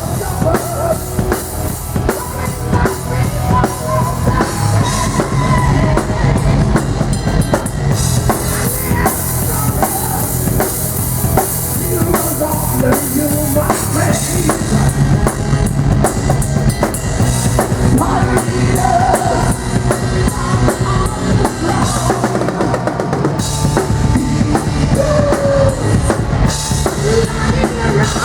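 Heavy metal band playing loudly, a drum kit with busy bass drum and snare hits driving it, under sustained guitar and bass tones and a wandering melodic line.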